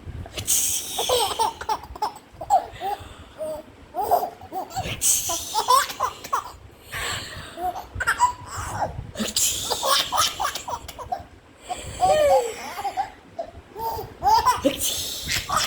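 A four-month-old baby laughing in repeated bouts a few seconds apart, each bout a run of short, breathy laughs.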